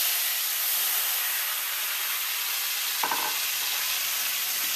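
Wine hitting a hot pan of bacon and its rendered fat, sizzling hard with a steady loud hiss as it boils off in steam.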